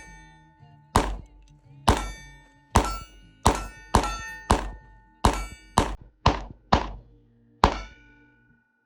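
A string of about eleven shots ringing steel targets. Each is a sharp crack-and-clang followed by a steady metallic ring, and the hits come faster in the middle before slowing near the end.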